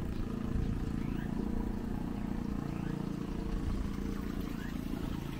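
Street ambience: a steady low rumble of traffic, with a bird repeating a short rising call about every one and a half to two seconds.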